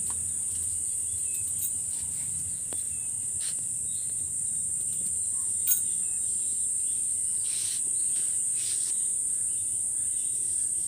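Steady high-pitched insect chorus, with one sharp click about six seconds in.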